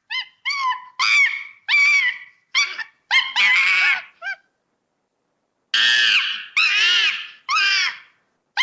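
A monkey calling: a string of short, high, squealing calls with arching pitch, about eight in the first half, then a pause of over a second, then a few louder, longer calls.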